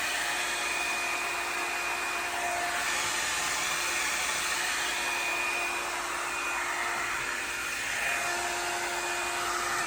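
Revlon One-Step Volumiser hot-air brush dryer running on a steady rush of blown air, with a faint motor whine that fades out and back in.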